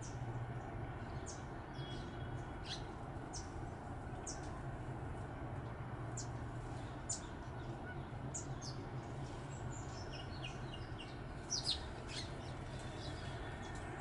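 Scattered thin, high chirps of small birds, with a short run of quick notes about ten seconds in, over a steady low hum.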